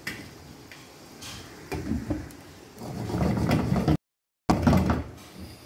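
Cookware handling: a glass lid set and slid onto a non-stick wok, making several separate clatters and scrapes.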